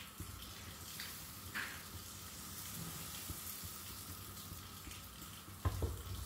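Faint, steady sizzling of appam batter cooking in a hot vellappam pan, with a few light clicks and a dull knock near the end.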